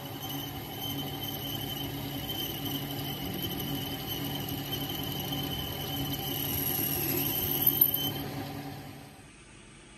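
A metal-cutting machine tool running with a steady, high-pitched squeal over a low hum, with a couple of sharp clicks just before it stops about eight seconds in and winds down.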